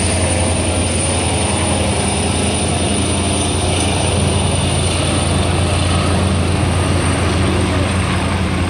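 Austal 47.5 m catamaran fast ferry's engines running hard as it powers away: a steady low hum under a continuous rush of noise.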